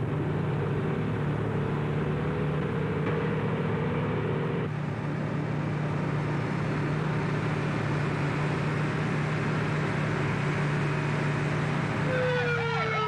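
Motorhome engine and road noise, a steady drone while cruising along a highway. About twelve seconds in, a police car siren starts wailing, rising and falling in pitch.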